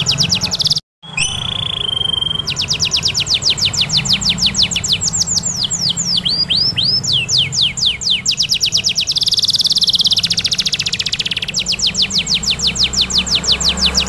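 Domestic canary singing long rolling trills of fast repeated chirps, about eight to ten a second, with a buzzier trill near the ten-second mark. The sound cuts out briefly about a second in.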